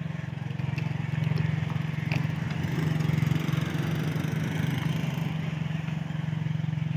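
An engine idling steadily nearby, a low, even hum that holds its pitch throughout.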